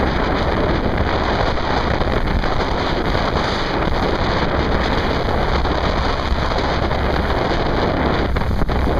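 Heavy wind on the microphone over the rush of water and spray along the hull of a small boat running fast through waves, with a steady low rumble beneath.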